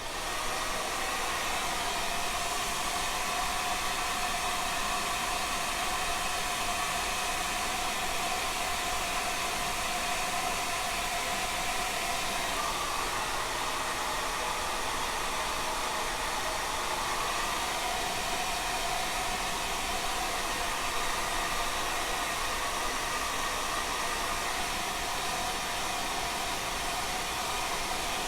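Handheld hair dryer running steadily, blowing a sprayed wig dry to lay it down flat.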